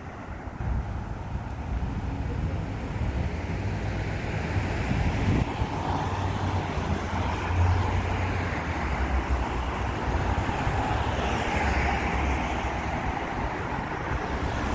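Road traffic on a multi-lane city street: a steady rumble of passing cars' engines and tyres, briefly louder around the middle as vehicles go by.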